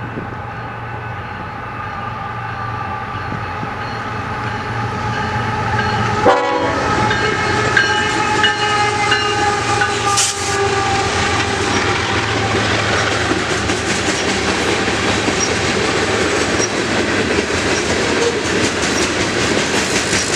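Freight train's diesel locomotives passing close by with the air horn sounding a long chord, its pitch dropping as they go by about six seconds in. The cars then roll past with a clickety-clack of wheels over rail joints that grows stronger near the end.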